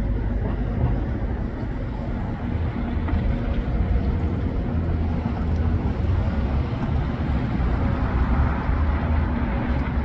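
NJ Transit commuter train's diesel locomotive running with a steady low engine rumble, with a faint hum of distinct low tones under it.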